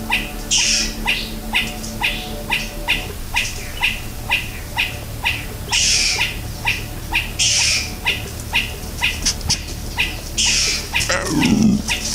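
An animal's chirping call repeating steadily about three times a second. A few short hissing rushes break in, and about eleven seconds in comes a loud sound that falls steeply from high to low pitch.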